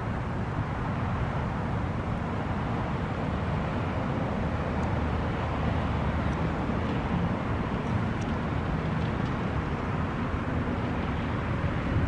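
Steady low outdoor rumble with a hiss over it, from wind on the microphone and nearby road traffic, with a brief louder gust near the end.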